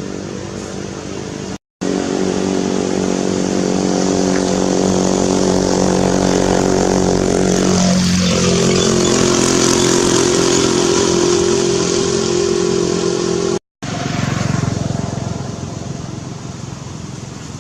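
An engine running steadily with an even, pitched drone; its pitch shifts about halfway through. The sound cuts out abruptly twice for a moment.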